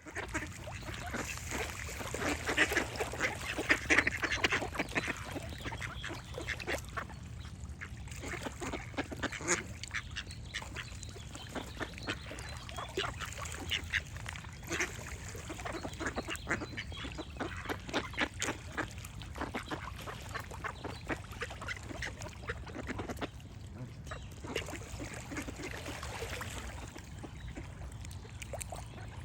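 Ducks quacking over and over in clusters of short calls, heaviest a few seconds in, with birds singing behind them over a steady low background hum.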